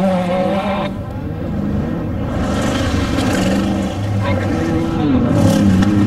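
Off-road desert race vehicle engine running loud, its pitch stepping and sliding up and down, with an abrupt change in the sound about a second in.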